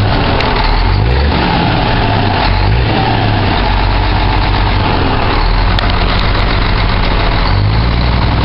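Scania 124 truck's inline-six diesel engine idling through a straight-piped exhaust, its low note shifting a few times.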